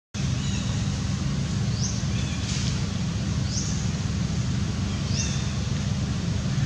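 Outdoor ambience: a steady low rumble, with brief high rising bird chirps every second or so.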